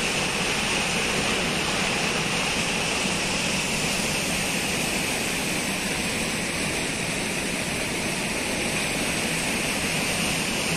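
Floodwater of the swollen Roro River pouring over a dam weir and churning through the channel below: a steady, even rush of water.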